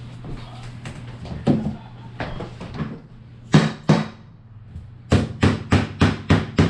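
Hammer striking a tapping block to knock luxury vinyl floor planks into place: a few scattered knocks, two loud ones in the middle, then a quick steady run of about four taps a second from about five seconds in.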